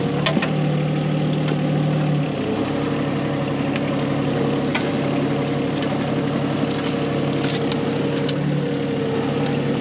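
Volvo EC20 mini excavator's diesel engine running steadily, heard from the operator's seat. Its tone shifts slightly about two seconds in and again near the end, with scattered sharp clicks over it.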